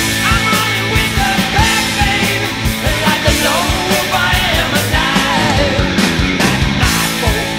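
Rock music with sung vocals and a steady drum beat.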